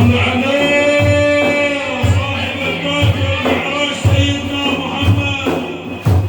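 Male voice singing a long, drawn-out line of Islamic madih praise song, over a drum beating about once a second.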